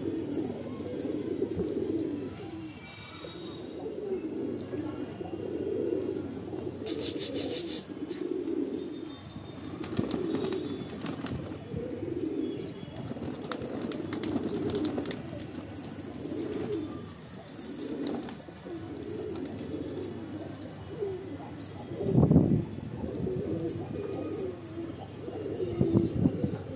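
Domestic pigeon cooing over and over in a steady run of low warbling coos, with a brief louder thump about two-thirds of the way through.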